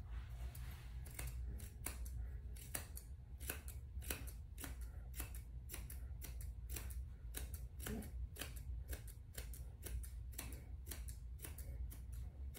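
Curved chunking shears (Zolitta) snipping repeatedly through a dog's coat, about three snips a second, as the hair at the back of the head is blended into the body.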